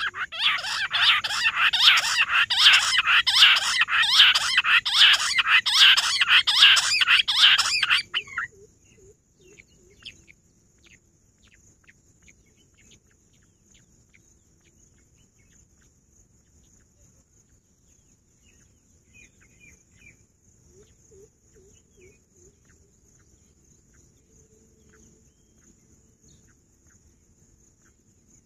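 Rock bush quails calling in a loud, rapid chorus of repeated notes that stops abruptly about eight seconds in. After that only a few faint scattered chirps remain over a steady faint high hiss.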